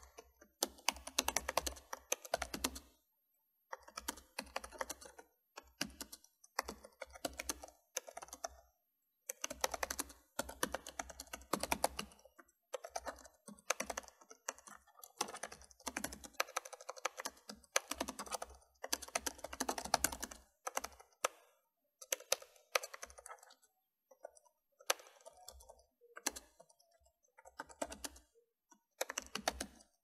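Typing on a computer keyboard: quick runs of keystrokes lasting a second or a few seconds, broken by short pauses.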